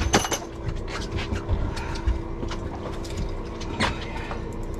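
Fishing reel being cranked with a fish on the line: a run of ratcheting gear clicks, with sharp knocks just after the start and again near the end. A steady engine hum sits underneath.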